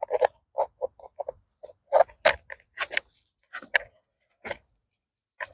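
Gloved hands working soil and transplanting bok choy seedlings from a metal bowl: about a dozen short, irregular clicks and scrapes.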